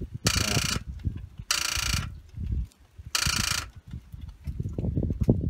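A 1997 Toyota Camry's failing starter motor, tried three times in short bursts of about half a second each, whining and clattering without the engine catching. The owner concludes the car needs a new starter. Near the end there is a low clattering with no whine.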